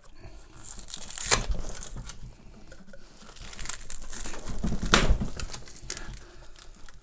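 Black plastic film wrapped around a monitor box crinkling and crackling as it is handled and pulled off. There are two louder rips, about a second in and about five seconds in.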